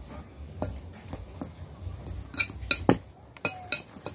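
Metal fork clinking and scraping against a ceramic bowl while tossing a salad, in irregular clicks, with a quick cluster of them in the second half.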